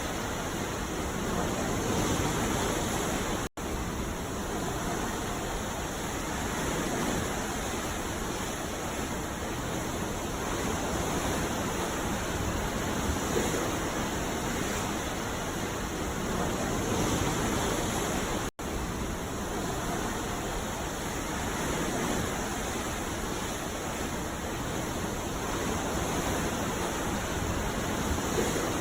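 Sea surf at night: a steady, dense rush of waves with slow, gentle swells. The sound cuts out for an instant twice, about 15 seconds apart.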